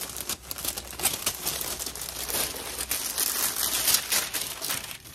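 Tissue paper crinkling and rustling as a bundle of folded clothes wrapped in it is lifted out and unwrapped: a dense, continuous run of small crackles.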